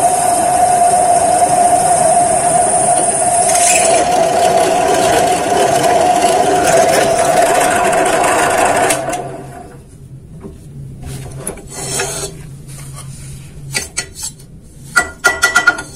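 Bench drill press running with a 5 mm twist bit drilling square steel hollow tube: a steady motor whine with a high cutting hiss that ends about four seconds in. The motor sound stops about nine seconds in, followed by sharp clinks and knocks of the steel tube as it is handled near the end.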